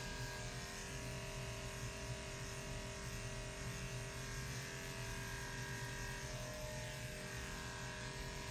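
Electric dog-grooming clippers running with a steady hum, shaving through a Shih Tzu's matted coat.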